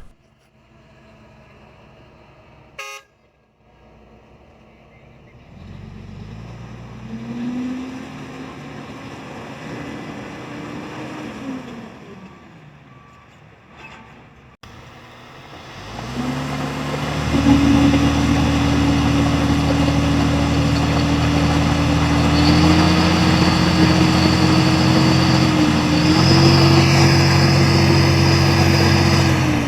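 Mining dump truck's diesel engine, faint at first, revving up about five seconds in and easing off again. It then climbs to a loud, steady high-rev run from about halfway, and a high thin whine joins it for the last several seconds.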